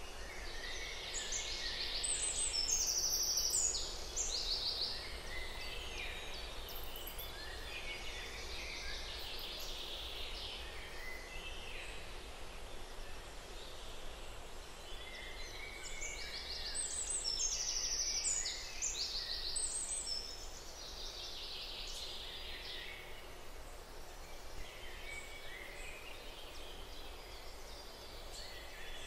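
Birds singing and chirping over a steady background hiss, like an outdoor nature ambience. The song comes in busy spells, strongest near the start and again about halfway through.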